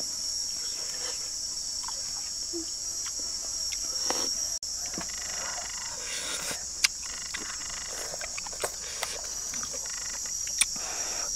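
Steady high-pitched insect chorus, with a few sharp clicks and knocks scattered through it.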